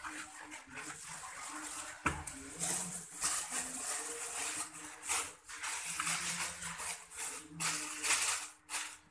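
Thin plastic bag crinkling and rustling in irregular bursts as it is handled, after a sharp knock about two seconds in as a small jar is set down on a steel plate.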